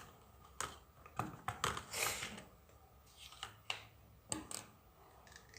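Scattered light clicks and knocks of utensils and containers being handled, with a short scrape about two seconds in.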